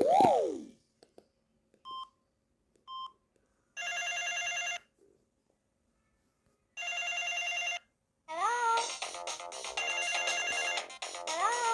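A loud tone sweeps up and back down, then two short beeps sound, from the Samsung SGH-X210 mobile phone. Two one-second bursts of ringtone follow, and from about eight seconds in a continuous electronic ringtone melody with rising glides plays.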